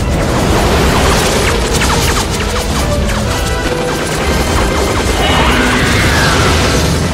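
Film action sound-effects mix: a loud, dense din of crashing and smashing with many sharp impacts, over music, and an explosion about six seconds in.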